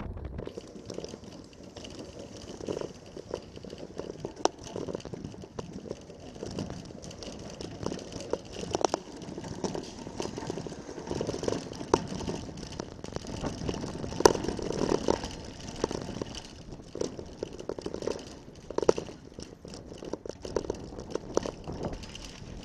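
Irregular rattling, knocks and scrapes of handling noise from a moving camera, over a steady outdoor hiss.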